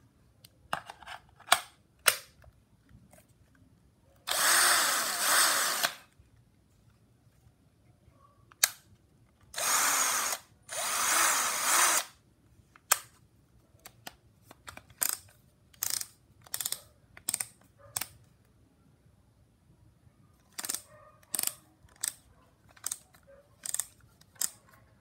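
Bosch GSB 180-LI 18 V cordless drill triggered briefly three times, its motor whirring up and back down for one to two seconds each run. Between the runs come sharp single clicks from the drill being handled, a steady string of them in the last few seconds.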